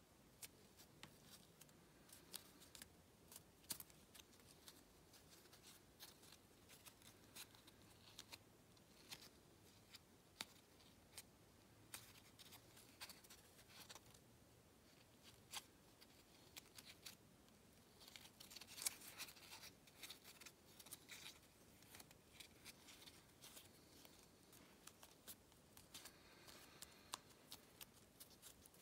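Faint crinkling and crackling of origami paper as fingers fold, pinch and crease it, in many small irregular snaps with a denser flurry about two-thirds of the way through.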